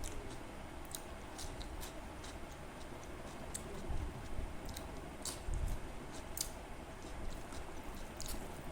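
A person chewing food, with scattered short clicks of the mouth and a few dull low thumps.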